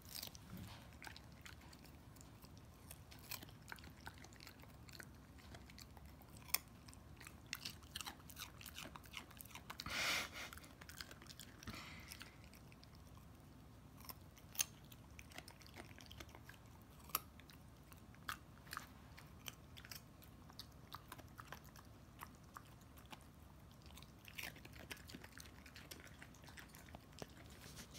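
Pomsky puppy chewing a raw carrot: irregular crisp crunches, a few of them sharp and loud, with a louder stretch of crunching about ten seconds in.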